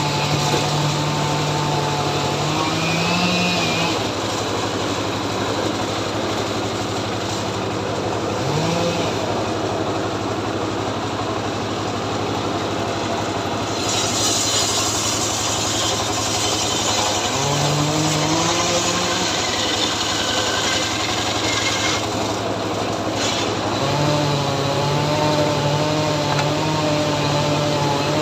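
Two-stroke chainsaw running at high speed throughout, its engine pitch dropping and rising again a few times.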